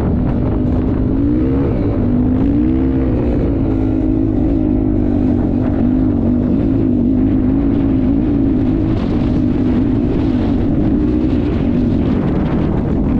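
Dirt bike engine running while being ridden, its pitch rising and dipping a few times in the first seconds, then holding fairly steady with small wavers.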